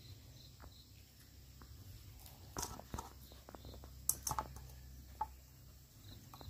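A handful of sharp clicks and light metallic knocks, loudest about four seconds in, as a stainless steel food bowl is set down on a stone floor and a small dog's paw and claws tap against it before it starts eating, over a low steady hum.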